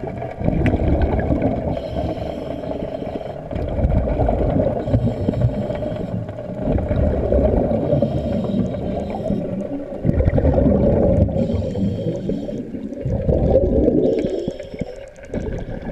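Underwater breathing through a surface-supplied (hookah) regulator: exhaled bubbles rumbling and gurgling past the mouthpiece, alternating with a hiss on each inhale, in a breath cycle about every three seconds.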